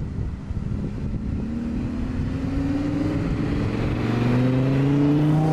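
Audi R8 RWS's naturally aspirated 5.2-litre V10 accelerating toward the listener. The engine note climbs, dips once about three seconds in, then climbs again and grows louder near the end.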